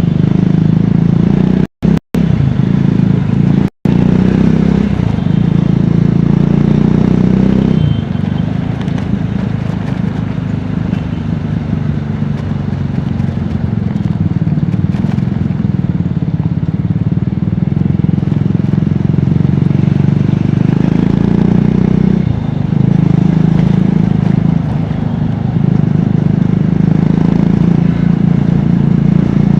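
Triumph Scrambler 400X's single-cylinder engine and exhaust heard from the rider's seat on the move: running under throttle, easing off about eight seconds in and staying lower for a long stretch, then pulling again about three-quarters of the way through. The sound cuts out completely for an instant three times in the first few seconds.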